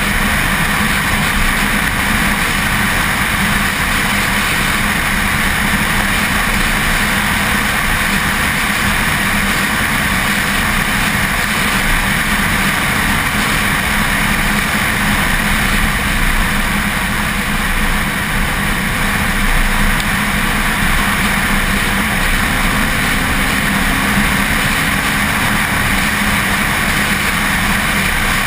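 Car at speed on a race track: engine running steadily, heard under a heavy rush of wind on the camera's microphone, which sits outside on the rear deck.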